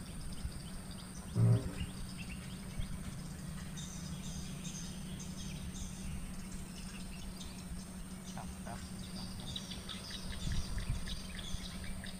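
Swamp-forest ambience: scattered high bird chirps and insect calls, over a steady low hum. About a second and a half in there is one short, low croak.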